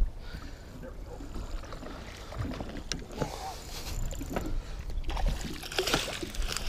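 A hooked fish splashing and thrashing at the water's surface beside the boat, from about five seconds in, after a few light knocks and clicks.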